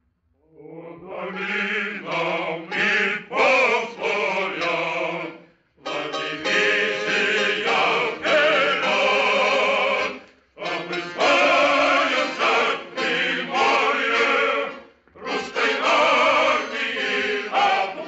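Voices singing in chorus: a music bridge in a 1940s radio drama. It fades in within the first second and comes in four long phrases, with short breaks between them.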